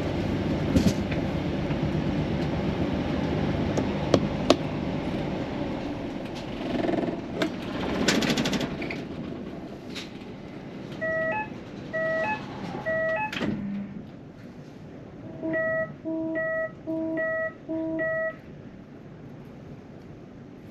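A train's diesel engine running at a standstill with a few clicks, then shutting down about ten seconds in. After that comes electronic beeping from the onboard help-point intercom: three short double beeps, then four longer beeps, with no answer.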